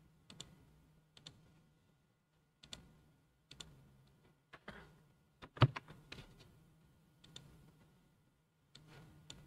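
Faint, scattered clicks of a computer mouse and keyboard, a dozen or so at irregular intervals, with one louder knock about five and a half seconds in. A faint low hum runs underneath.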